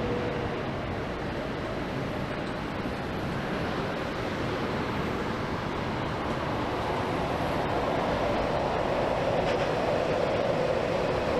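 Jet airliner engine noise: a steady rushing sound that grows louder over the second half, with a droning tone coming in as the aircraft nears.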